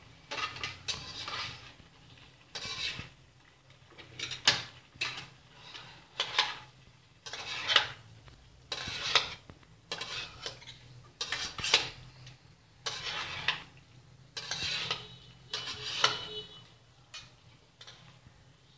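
Metal spatula scraping and clattering against a metal wok while stir-frying pineapple chunks and beef liver, in short strokes about every second and a half, with sharp clinks of metal on metal.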